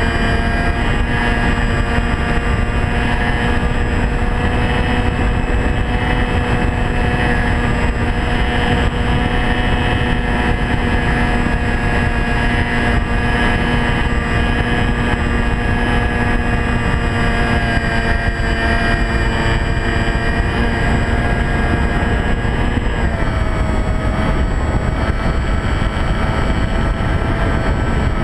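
Model airplane's motor and propeller droning steadily, with wind rushing over the camera. The pitch drops a little about two-thirds of the way through as the throttle changes.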